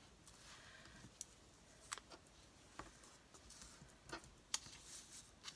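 Faint, scattered clicks and taps from paper and crafting tools being handled on a table, about half a dozen at irregular intervals, over quiet room tone.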